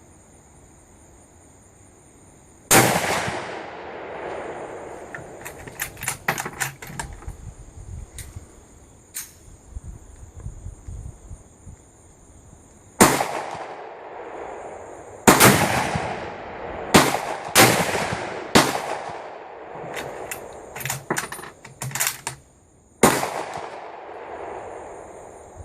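Rifle gunshots: four loud, echoing shots, spaced several seconds apart, with many quicker, sharper cracks in between that come too fast for one bolt-action rifle. A steady high-pitched insect drone runs under the shots and breaks off now and then.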